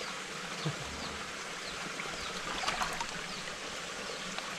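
Stream water running steadily, with a couple of brief sharp sounds, about a second in and near the middle.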